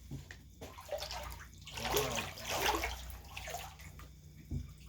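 Shallow floodwater on a basement floor splashing and sloshing irregularly, louder about two seconds in.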